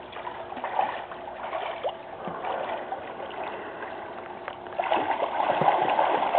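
Pool water splashing and lapping as a swimmer kicks and paddles along while lying on a floating backboard; the splashing gets louder about five seconds in.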